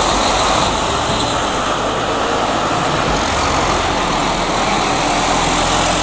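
Large diesel buses running as they pass close and pull through, a steady mix of engine hum and traffic noise.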